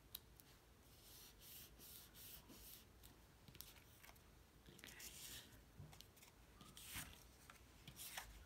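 Faint rustling and rubbing of cardstock pieces being handled and folded, in short scratchy strokes, with a couple of light taps near the end.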